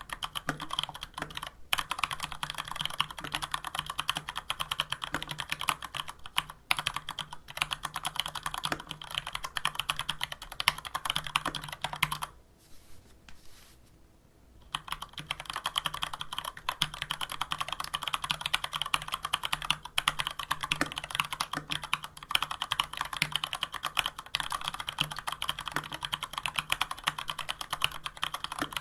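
Fast continuous typing on a Varmilo VA104M mechanical keyboard with stock, unlubricated Cherry MX Brown switches and dye-sub PBT keycaps. The clacking stops for about two seconds near the middle, then resumes.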